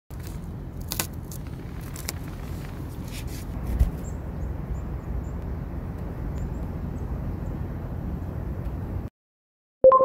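Rice crackers snapped and crumbled by hand, a few sharp cracks over steady low outdoor noise. Near the end the sound cuts off, and a loud electronic logo chime rings and slowly fades.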